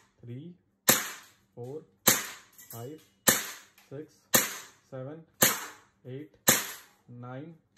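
Umarex Beretta M92A1 blowback CO2 BB pistol firing six sharp shots, about one a second, in slow aimed fire.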